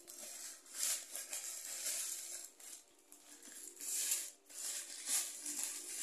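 Black plastic bag rustling and crinkling in a string of short bursts as hands pull a cardboard box out of it.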